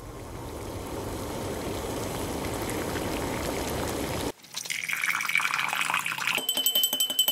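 Sound-designed water: a rushing, bubbling swell grows louder for about four seconds and cuts off abruptly. Tea is then poured into a glass with a rising filling sound, and near the end a fast, even clicking with a steady high tone joins in.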